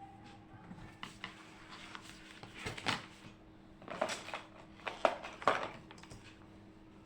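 Handling noises: a few clattering knocks and rustles, the loudest about four and five seconds in, over a faint steady hum.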